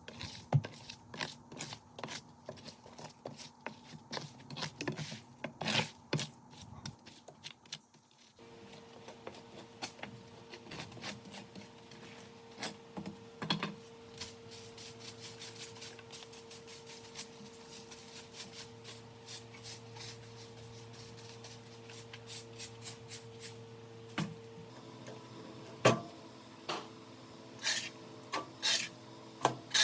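Irregular scraping and rubbing on wood, like hand tools working a tree trunk, with scattered knocks. From about eight seconds in a steady hum runs under the scraping.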